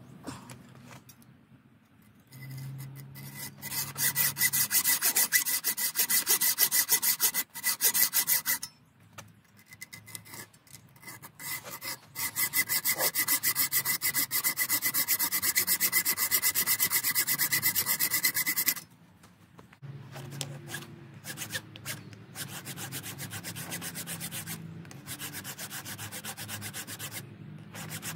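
A hacksaw cuts through a small steel part clamped in a bench vise: two long runs of quick back-and-forth strokes, each with a thin high ringing note from the blade and workpiece. After a short pause, quieter strokes of a file rasping across the steel follow.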